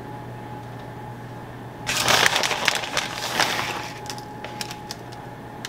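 Crinkly rustling as a hand grabs shredded cheese and sprinkles it over the bread, starting about two seconds in and lasting about two seconds, followed by a few light ticks.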